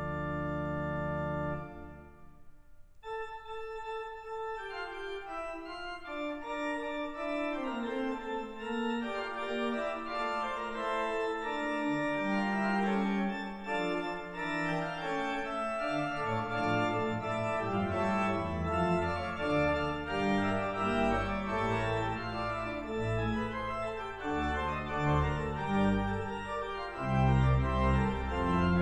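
Concert pipe organ built by C.B. Fisk: a held full chord cuts off near the start, and after a brief pause a single high line begins. More voices enter one after another, each lower than the last, and deep pedal bass comes in past the middle.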